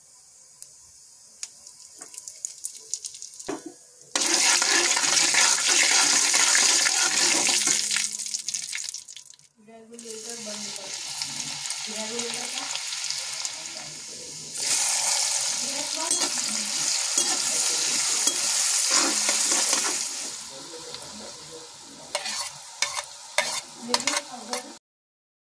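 Garlic, onion and spices sizzling in hot oil in an aluminium kadai: faint crackling at first, then a loud steady hiss from about four seconds in that dips briefly near the middle, swells again and eases off toward the end. A metal spoon clicks against the pan several times near the end, before the sound cuts off abruptly.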